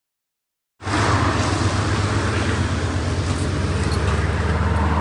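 Steady road traffic rumble with a strong low hum, cutting in abruptly about a second in after dead silence.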